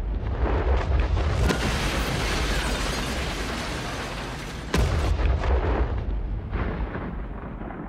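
A loud rumbling, boom-like noise that swells up, with a sharp crack about one and a half seconds in and another just before five seconds, then slowly dies away.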